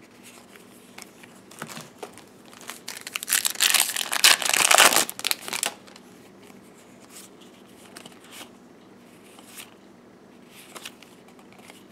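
Foil Yu-Gi-Oh! The Secret Forces booster pack wrapper crinkled and torn open, the loud tearing running about three to six seconds in, with lighter crinkling of the wrapper before and after.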